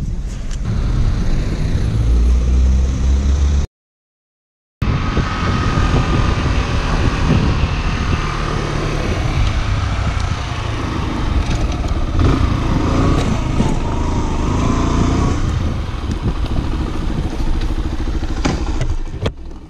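Motorcycle engine running as the bike is ridden along a street. The sound cuts out completely for about a second about four seconds in, and it drops in level near the end as the bike pulls up.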